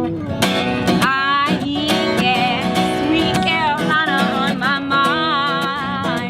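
Acoustic guitar being strummed, with a wavering melody line carried over the chords from about a second in.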